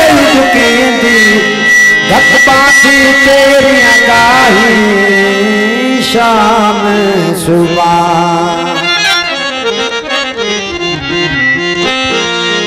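Live Punjabi folk music: a wavering, ornamented melody line with drum accompaniment.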